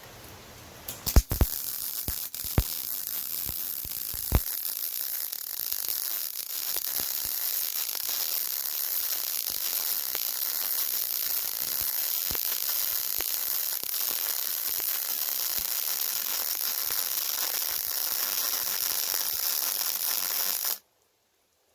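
Yeswelder MIG-Pro250 MIG welding arc running a bead on 5/16-inch steel plate with .035 wire, making a steady crackling sizzle. A few sharp pops come over the first few seconds as the arc strikes, and the sound cuts off suddenly about a second before the end.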